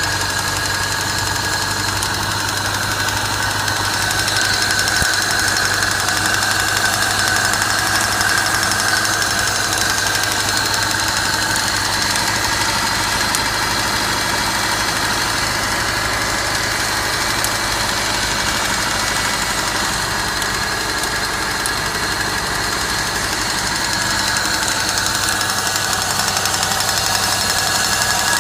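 Car engine running steadily with a knocking and rattling noise from inside the engine.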